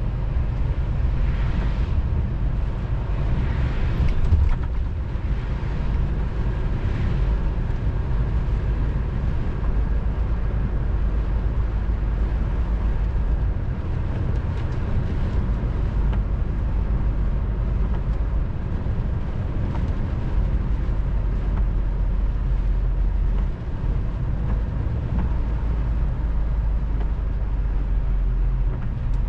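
Inside a moving lorry cab: steady low drone of the engine with tyre and road noise on a wet road.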